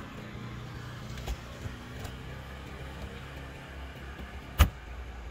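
A Toyota Camry's trunk lid slammed shut about four and a half seconds in: one sharp, loud bang. Before it, two soft knocks as a cardboard box is set into the trunk.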